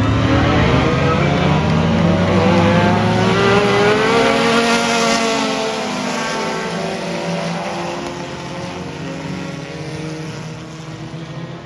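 A pack of sport compact race cars with four-cylinder engines running at full throttle past the fence. The engine notes rise in pitch to their loudest about four to five seconds in, then drop and fade as the field pulls away.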